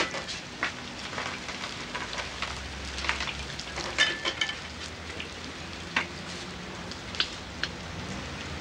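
Hot oil in a snack-bar deep fryer sizzling steadily, with several sharp clicks from handling at the fryer.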